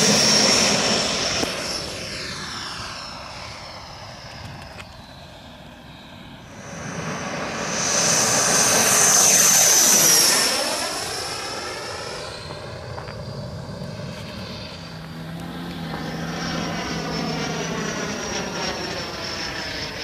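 Electric ducted fan (Schübeler impeller) of a radio-controlled M-346 model jet whining at high power. It is loud at first and fades as the jet pulls away. It swells to its loudest as the jet passes low overhead about eight to ten seconds in, the pitch dropping as it goes by, then settles to a softer steady whine in flight.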